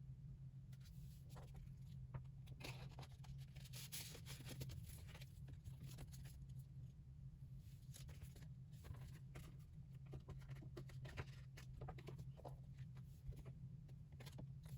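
Faint rustling and light scratchy clicks of album packaging and photocards being handled and opened, irregular throughout, over a steady low hum.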